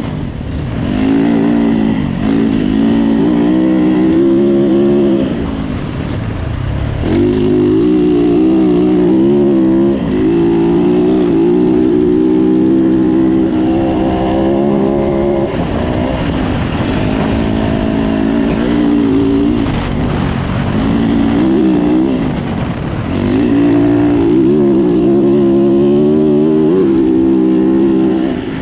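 Yamaha dirt bike engine, heard from on board, running hard under load. The rider eases off the throttle several times, around six, ten, sixteen and twenty-one seconds in, and opens it again so the engine pitch climbs back up.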